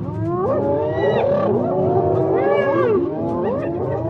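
A pack of spotted hyenas calling together while crowded at a kill: many overlapping squeals and yelps that rise and fall in pitch, with no break.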